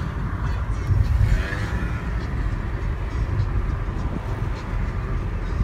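Road and engine noise inside a moving car: a steady low rumble that swells briefly about a second in.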